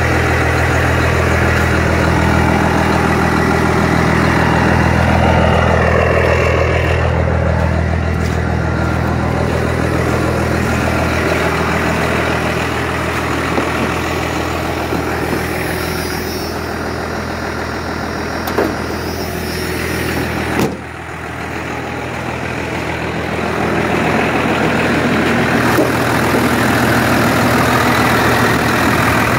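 First-gen Dodge Cummins 5.9-litre inline-six turbo diesel idling steadily, its note fading somewhat partway through. Two sharp knocks come about two-thirds of the way in, the second followed by a short drop in the engine sound.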